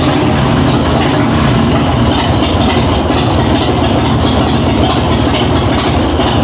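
Harley-Davidson Dyna's air-cooled V-twin engine idling steadily, warmed up to working temperature.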